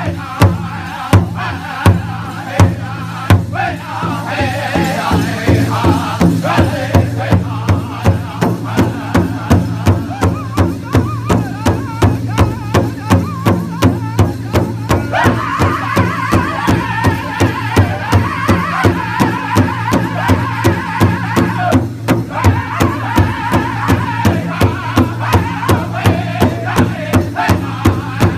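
Powwow drum group singing in chorus while several men strike one large shared drum together with drumsticks in a steady beat of about two strokes a second. About halfway through, the singing rises to a higher-pitched line.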